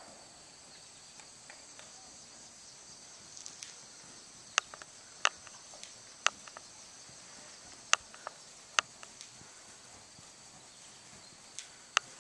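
Steady high-pitched drone of summer insects, with a scattering of sharp clicks about once a second from about a third of the way in.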